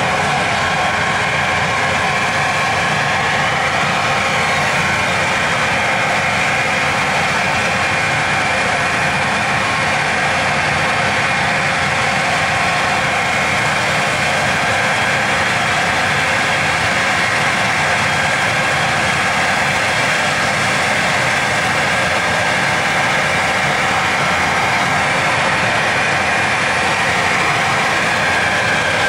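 Machine running steadily: a constant loud mechanical drone with several steady whining tones in it.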